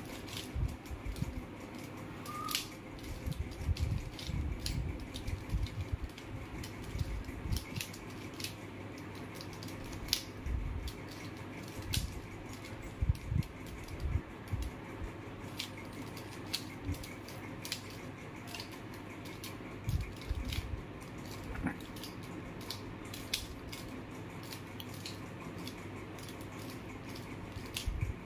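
Plastic mirror cube being twisted by hand: irregular light clicks and clacks as its layers turn, with occasional soft low thumps, over steady background noise.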